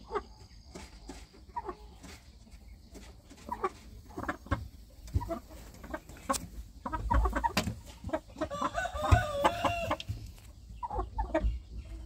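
Young gamecocks clucking and calling in short bursts, with one longer call about nine seconds in.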